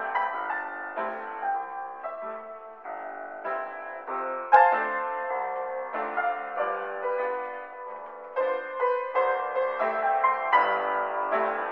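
Background piano music, a steady run of notes and chords, with one sharp click about four and a half seconds in.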